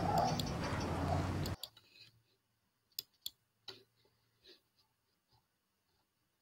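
Loud pitched, voice-like audio from a played video clip cuts off suddenly about a second and a half in, followed by a few faint, sharp computer clicks.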